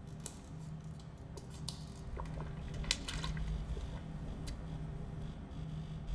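Foley of a person drinking from a plastic bottle: wet, squishy liquid sounds and short crinkles of the bottle, busiest about halfway through, over a low steady hum.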